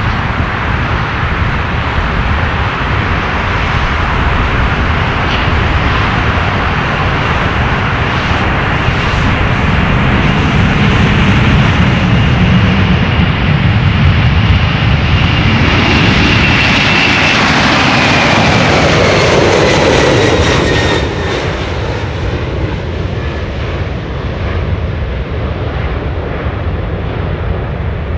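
Boeing 747 freighter's four jet engines at take-off power: a loud, steady rumble with a high whine as it rolls and lifts off. The whine falls in pitch as the jet passes, and a little after two-thirds of the way through the noise drops as it climbs away.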